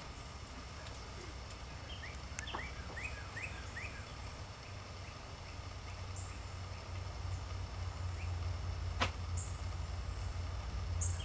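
Faint bird calls: runs of short rising chirps, about three a second, with a few high peeps, over a steady low hum. A single sharp click comes about nine seconds in.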